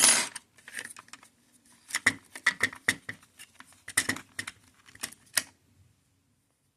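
Small plastic parts of a Beurer BM27 blood pressure monitor being handled as the small green air-release valve is pulled out: a short scrape at the start, then a run of irregular clicks and taps that stops about five and a half seconds in.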